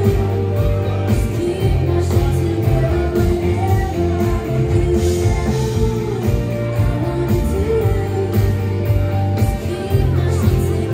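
A live band playing: a woman singing a melody over electric guitars, bass, keyboard and a steady drum beat, recorded from inside the crowd.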